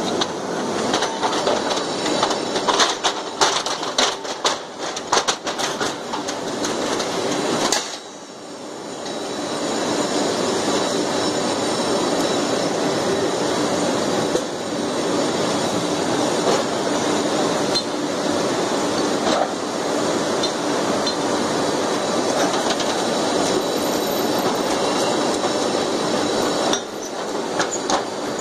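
Steady din of heavy machinery in a railway wheel factory. A run of sharp metallic knocks and clinks fills roughly the first eight seconds, then the noise eases briefly and settles into a steady industrial hum.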